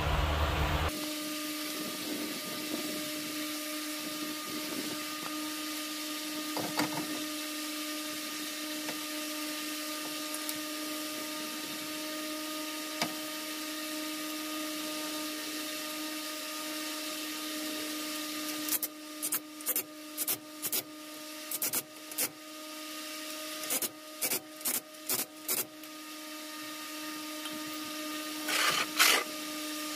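A steady electric hum runs throughout while a steel truck wheel is hung on its hub and the lug nuts are threaded on by hand. A run of about ten short metallic clicks and scrapes comes about two-thirds of the way in, and a louder brief burst follows near the end.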